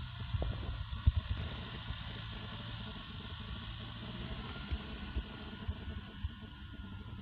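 Tractor engine running steadily under load as it pulls a rotary tiller through field soil. Occasional low thumps break through, the loudest about a second in.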